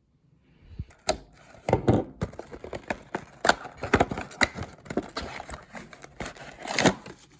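Trading-card deck packaging and cards being handled: irregular crinkling and crackling with sharp clicks, loudest about two seconds in and again near the end.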